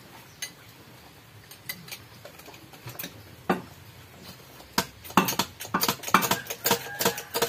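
Sharp metallic clicks and clinks of tools and parts working on an engine being fitted into a car's engine bay. A few are scattered at first, then they come quickly, several a second, from about five seconds in.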